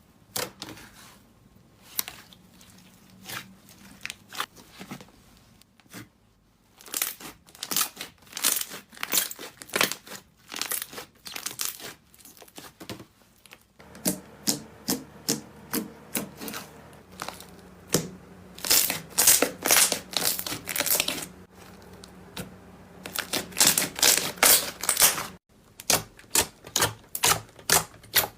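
Slime being pressed and squeezed by hand, giving quick sticky crackles and pops in irregular bursts, with short pauses between handfuls.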